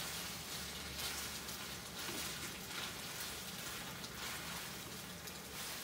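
Spaghetti napolitan sizzling in a frying pan while it is tossed with tongs in its ketchup sauce: a steady frying hiss with a few soft clicks.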